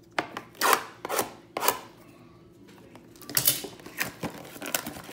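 Cardboard trading-card hobby box and its foil-wrapped contents handled on a tabletop: a few quick knocks and scrapes in the first two seconds, a short lull, then rustling and light taps.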